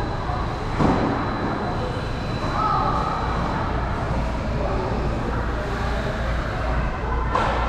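Radio-controlled cars running around an indoor go-kart track over a steady low hum, with a sharp knock about a second in and another short burst of noise near the end.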